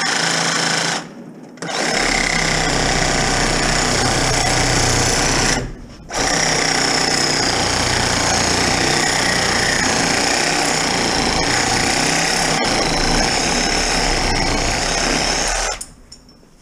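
Reciprocating saw cutting through a piece of scrap metal held in a bench vise. It runs in three stretches, with short stops about a second in and near six seconds in, and shuts off shortly before the end.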